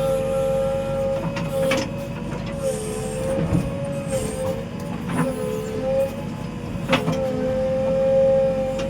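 JCB 3DX backhoe loader working: its diesel engine and hydraulics run with a steady whine that sags in pitch a few times as the hydraulics take load. Three sharp metallic knocks come about 2, 5 and 7 seconds in.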